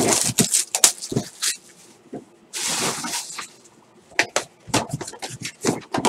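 Cellophane shrink-wrap being torn and crinkled off a cardboard trading card hobby box, with a longer rustle of wrap being pulled about halfway through. Near the end, sharp taps and clicks as the box's cardboard lid is flipped open and the box is handled.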